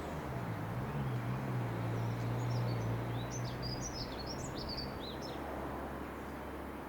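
A light aircraft's piston engine drones steadily, weakening after about five seconds, while birds chirp rapidly over it.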